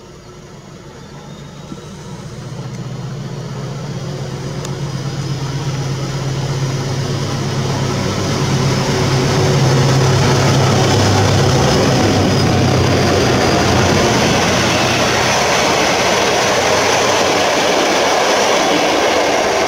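SM42 diesel-electric locomotive approaching and passing at speed: its engine drone grows louder and is strongest about halfway through, then fades as the steady rushing rumble of the coaches' wheels on the rails takes over and stays loud.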